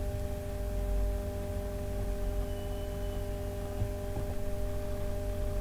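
A steady electrical hum of several even tones over a low rumble.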